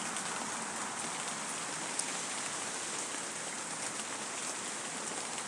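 Steady rain falling, with scattered individual drops striking close by.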